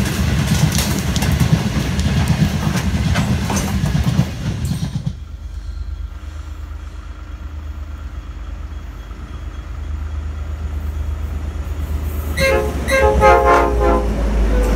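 Freight hopper wagons clattering past over the rail joints with a heavy rumble; about five seconds in this stops abruptly and a V/Line N-class diesel locomotive is heard approaching with a low engine rumble that grows louder. Near the end, as the locomotive passes, its horn sounds in several short blasts.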